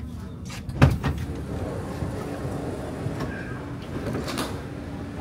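Stockholm metro train's sliding doors opening at a station stop: a loud clunk about a second in as they release, then rattling clicks as they slide, over the car's steady low hum.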